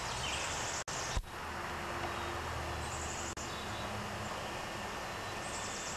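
Outdoor background: a steady hiss with a faint low hum, and a short high chirping trill that comes three times, roughly every two and a half seconds. The sound drops out briefly a couple of times.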